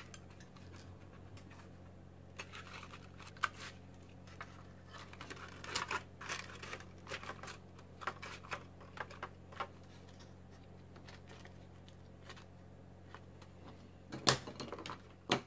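Light, irregular clicks and taps of stiff white cut-out parts of a model airplane being handled and slotted together, with one sharper knock near the end, over a steady low hum.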